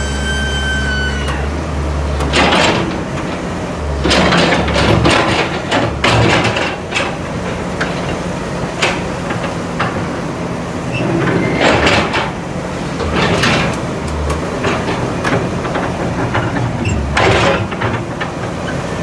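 Excavator engine running steadily, with about eight short noisy bursts of clatter and hiss scattered through it as the machine works.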